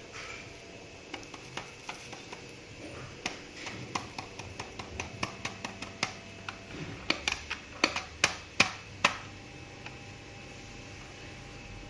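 A run of sharp clicks and knocks, like plastic parts of a vacuum cleaner being handled and taken apart, sparse at first, then quicker and loudest near the end before stopping about three seconds before it.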